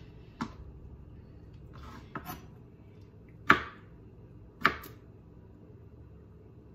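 Chef's knife slicing a dill pickle thin on a plastic cutting board: four sharp knocks of the blade against the board, one to two seconds apart, the loudest about halfway through.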